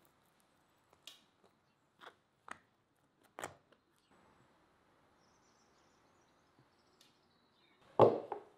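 A few brief, soft scrapes as a pat of butter is rubbed over the crisp baked crust of a meat pie. Near the end, one much louder knock as a glass teapot is set down on a wooden table.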